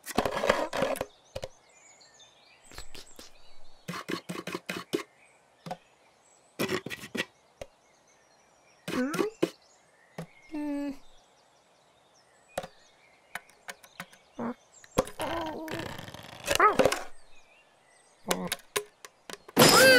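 Cartoon sound effects of a cat scrabbling and tapping at a wooden nest box: quick clusters of knocks and scratches, broken by short voiced cat noises, busiest near the end.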